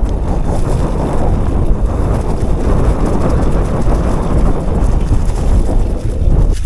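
Wind buffeting the camera's microphone over the rolling rumble of mountain-bike tyres on dry fallen leaves and dirt trail, a steady loud rush with no pauses.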